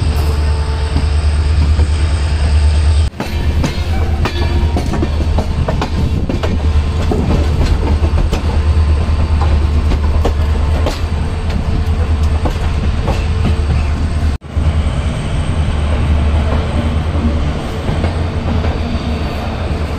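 Passenger train of LHB coaches running on the rails, heard from an open coach doorway: a steady low rumble with the clatter and clicks of the wheels over the track. The sound breaks off abruptly for a moment twice, about three seconds in and again about two-thirds of the way through.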